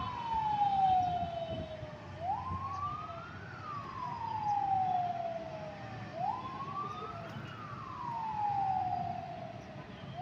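Fire truck siren wailing: each cycle climbs over about a second and then slides slowly back down, repeating about every four seconds, three times, over a low traffic rumble.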